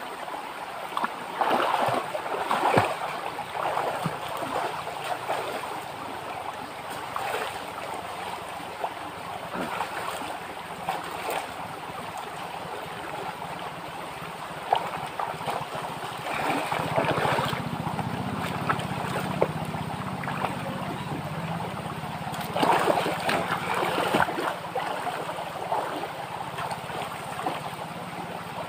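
Steady rush of flowing stream water, with louder bursts of splashing a few times as a man bathes in it.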